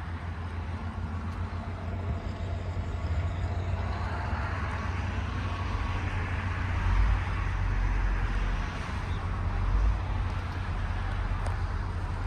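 Road traffic passing: a steady rush of tyres and engines that swells and fades over several seconds, over a low rumble.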